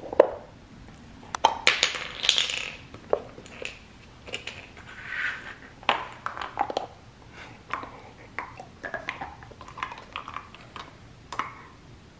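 Labrador puppy playing with a chew bone on a hard tile floor: irregular knocks and clatters of the bone against the floor, with scrapes and gnawing.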